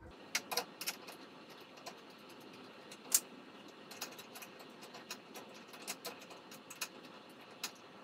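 Scattered light metallic clicks and taps of bolts and a Mitsubishi OEM brake cooling guide being handled as the bolts are threaded in by hand. The sharpest click comes about three seconds in, over a faint steady hiss.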